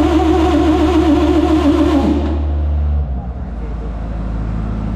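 Starter motor cranking a Detroit Diesel 4-71 two-stroke diesel over during a compression test: a steady whine whose pitch wavers with each compression stroke, cutting off about two seconds in. A low hum carries on for about another second, then drops away.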